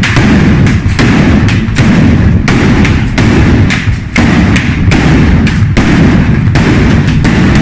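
A batteria, a long string of firecrackers laid along the street, going off in a loud, continuous barrage of bangs, many to the second with no break.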